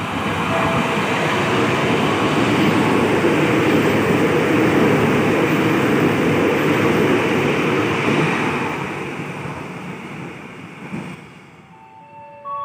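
Airport train, an electric multiple unit, passing through a station without stopping: a steady rush of wheel and rail noise that swells in the first second, holds, then fades away over the last few seconds.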